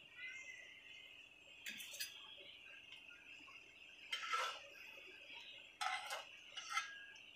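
Metal spatula and silicone spatula scraping and clinking against a blackened wok while a folded omelette is pushed and lifted, in a few short clatters, the loudest about four and six seconds in. A faint steady high-pitched hum runs underneath.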